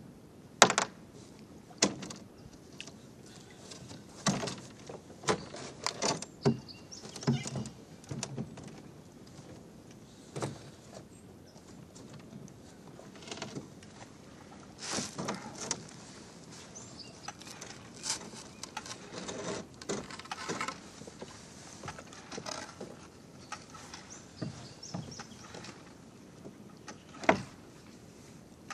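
Irregular knocks, clunks and scrapes from a small wooden-oared rowboat being boarded and pushed off, with the oars knocking in their oarlocks. One loud knock comes near the end.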